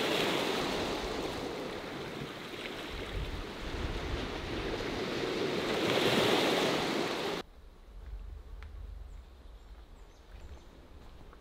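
Small waves washing in over a pebble and rock shore, easing and then swelling to their loudest before cutting off abruptly about seven seconds in. After the cut there is only a faint low rumble of outdoor ambience with a few light ticks.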